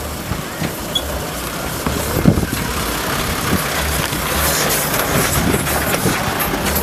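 Off-road 4x4's engine running at low revs as it crawls over rocks, with tyres crunching on stones and gravel; the noise grows louder from about two seconds in as the vehicle passes close by.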